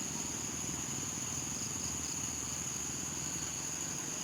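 Night insects, crickets or similar, chirring in one steady high-pitched drone.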